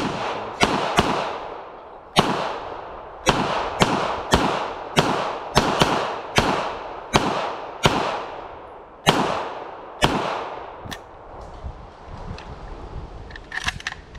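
Zenith Z-5K, a semi-automatic 9mm MP5K clone, fired about sixteen times at an uneven, fairly quick pace over about eleven seconds, each shot trailing off in echo. A few light clicks follow near the end.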